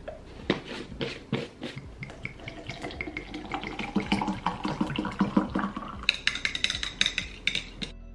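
A plastic scoop tapping against a drinking glass a few times, then water poured from a glass bottle into a tall glass of green powder, splashing and gurgling as the glass fills. Near the end comes a quick run of clinks.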